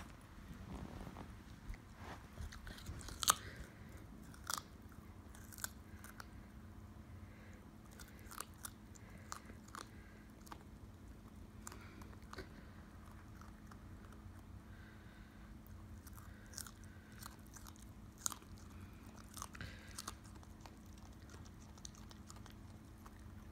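West Highland white terrier puppy chewing and crunching pieces of raw carrot: irregular sharp crunches scattered throughout, with the loudest about three seconds in.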